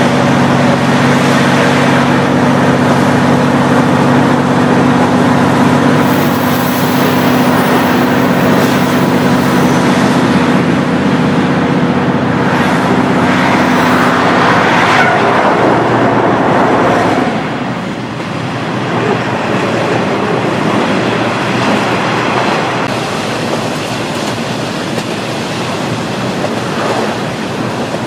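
A KiHa 40 diesel railcar's original DMF15HSA engine running under power, heard from inside the car as a steady drone over the rumble of wheels on rail. About 17 seconds in the engine note drops away, leaving only wheel and rail noise as the railcar coasts.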